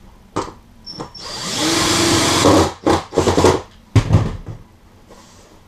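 Cordless drill driving self-tapping screws through an oak ledger into the trailer's wall. The motor spins up and runs for about a second and a half, then gives a few short bursts as the screw is snugged down.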